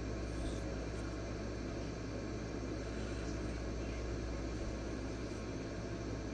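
Steady low hum with an even hiss: room noise, with no distinct strokes standing out.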